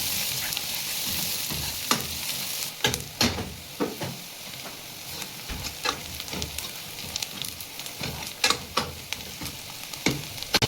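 Onions with whole cumin, coriander seeds and dried red chillies sizzling in hot oil in a cooking pan, with a surge of sizzle at the start as the spices go in. A stirring spoon knocks and scrapes against the pan many times at irregular intervals.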